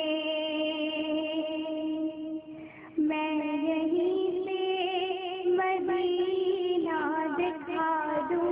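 A girl singing a naat solo into a microphone, holding long notes and adding ornaments that waver in pitch. Her voice drops away briefly about two seconds in and comes back at three seconds.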